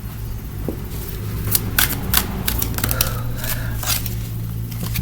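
Tarot cards being shuffled and handled: a run of sharp, irregular clicks and snaps, thickest in the middle, over a steady low hum.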